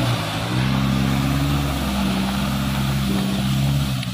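Diesel engine of a coal-laden Isuzu Elf light truck pulling steadily under load as it drives up the slope, with a brief dip in revs about half a second in.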